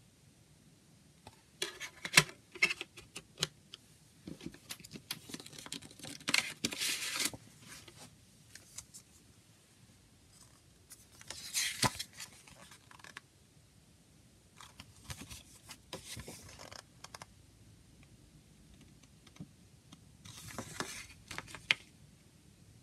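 Handling of a CD jewel case and its paper booklet: sharp plastic clicks and taps with paper rustling and sliding as the booklet is opened and its pages turned, in several short bursts with pauses between.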